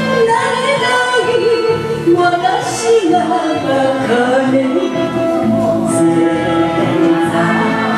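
A woman singing an enka song with wavering vibrato over a karaoke backing track.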